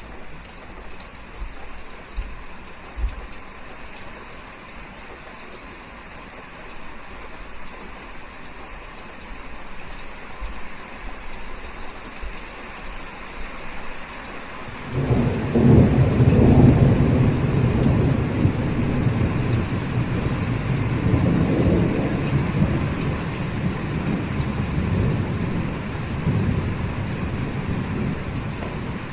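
Steady rain falling, with a loud, low rumble of thunder that breaks in suddenly about halfway through and rolls on, slowly easing off.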